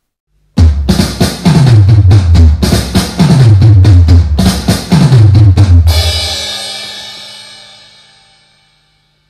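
Intro music: a loud drum-kit beat with heavy bass drum and deep thumps that drop in pitch. The beat stops about six seconds in on a cymbal crash that rings out and fades over a couple of seconds.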